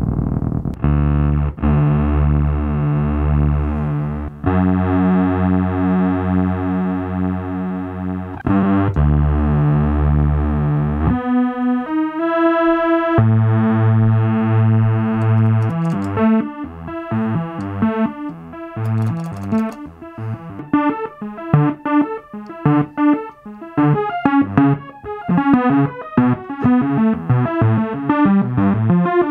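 Electric bass played through a synth effects pedal and an Aguilar head into Barefaced cabinets, giving a synthesizer-like tone. Long held low notes for the first ten seconds or so, a brief higher phrase, then a run of quick short notes through the second half.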